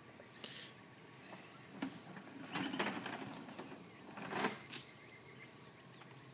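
A metal tow chain rattling and clinking in several short bursts as it is handled. The loudest is a sharp clink about three-quarters of the way through. Birds chirp faintly in the background.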